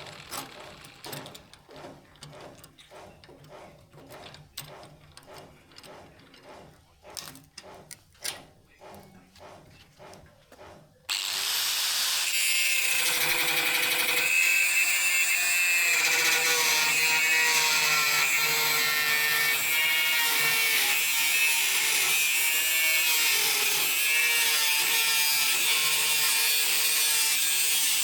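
A run of short, quieter scraping strokes, then about eleven seconds in a loud electric power tool starts abruptly and runs steadily under load on the steel of an old saw blade, its pitch wavering as it works.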